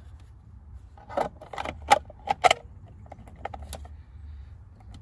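Black plastic cover being fitted onto an Auxbeam relay/fuse box: a quick run of sharp plastic clicks and rattles about a second in, lasting about a second and a half, then a few lighter ticks.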